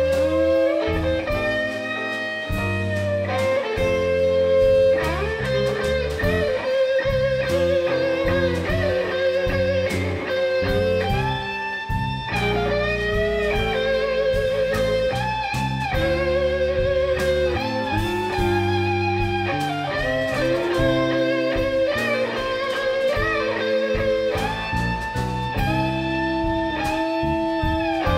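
Live blues band playing an instrumental break: an electric guitar takes the lead with long held notes, bends and wide vibrato over bass and drums.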